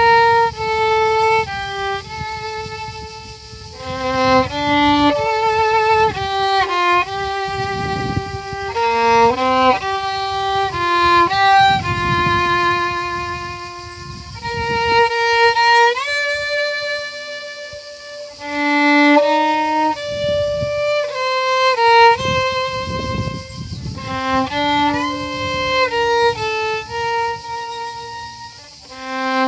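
Violin playing a slow melody one note at a time, with vibrato on the held notes and slides up into some of them.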